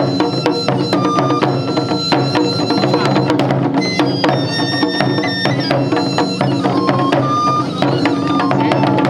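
Japanese taiko (wadaiko) drum ensemble playing a fast, steady rhythm of drum and rim strikes, with a high melody of long held notes over the drums.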